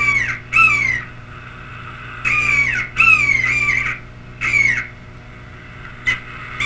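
A series of harsh, bird-like squawks, about six of them. Each is a short call that slides down in pitch, coming singly or in quick pairs with gaps between, over a steady electrical hum.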